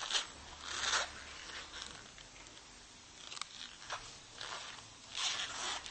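Nylon webbing strap rasping as it is pulled and adjusted through its buckle: a few short zip-like swishes, the strongest about a second in and near the end.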